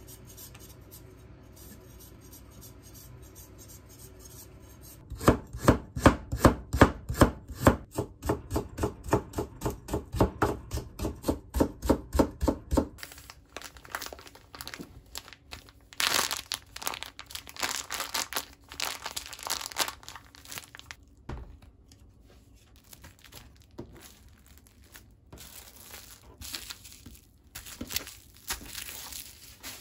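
A kitchen knife chopping quickly on a cutting board, starting about five seconds in, about three strokes a second for some eight seconds. After that come irregular plastic rustling and crinkling as a zip-top freezer bag is pressed shut and cling-film-wrapped packs are handled.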